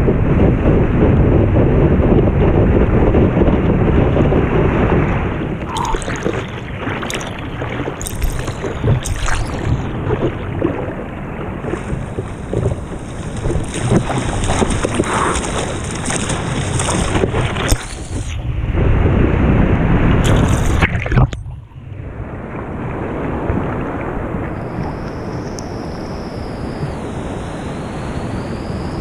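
Ocean water rushing and wind buffeting a surfboard-mounted action camera while a surfer rides a wave, then water splashing against the camera in separate slaps as he paddles, with a second loud rush of water before it settles to a steady lower wash of sea.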